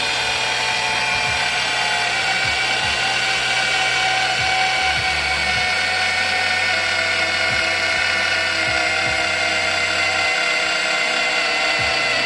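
Cordless Milwaukee magnetic drill running under load, cutting a hole through steel: a steady, loud mechanical whine with several high tones.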